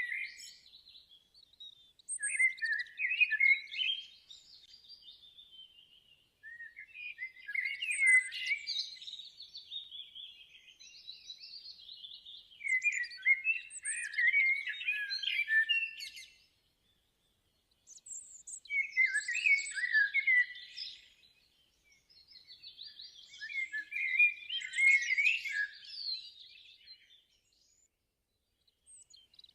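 Bird singing in phrases of quick chirps and trills, each a few seconds long and separated by short pauses.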